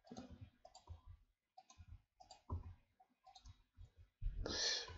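Faint, scattered clicks of a computer mouse and keyboard being worked, a few a second, with a louder hiss-like noise lasting about half a second near the end.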